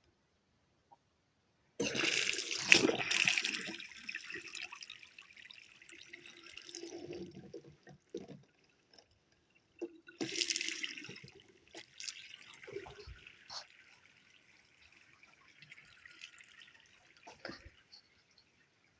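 Water rushing from a newly plumbed tap into a sink in two spells. The first starts about two seconds in and fades to a hiss; the second comes about ten seconds in and also trails off to a hiss. A few knocks fall between them.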